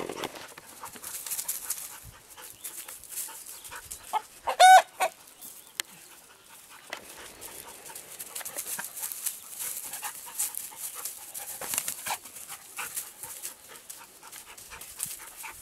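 A rooster and a young dog scuffling on grass and dry straw, with rustling and scrabbling footfalls throughout. About four and a half seconds in there is one short, loud, high-pitched animal cry.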